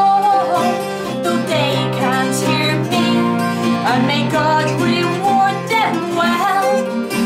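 Two acoustic guitars played together, accompanying a woman singing a folk melody with a steady flowing line.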